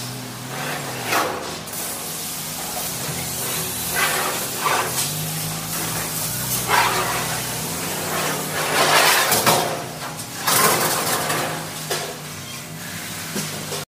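A cloth wiping across a sheet-metal panel in separate strokes, each a short swish, over a steady low hum.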